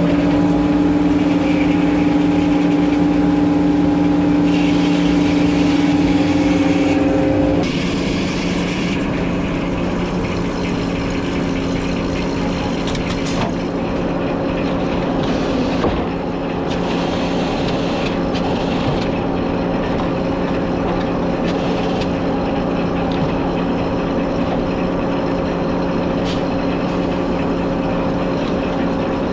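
Sawmill engine running steadily under work while a log is sawn; its note drops a little and gets slightly quieter about seven and a half seconds in.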